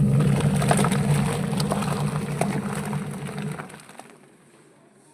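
Skyzen 8 kg semi-automatic washing machine's motor running with a steady hum and light clicking, then cutting out about four seconds in.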